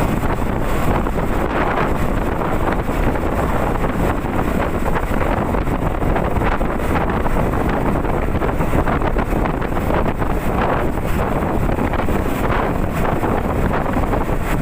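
Steady wind rush buffeting the microphone of a rider on a moving Honda CB150R motorcycle, with the bike running underneath.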